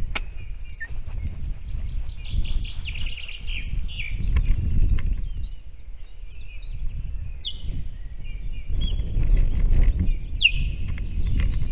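Ospreys giving bursts of sharp, high whistled alarm calls, quick runs of repeated notes with some sharply falling calls, in reaction to an intruding osprey over the nest. A low rumble of wind on the microphone runs under the calls.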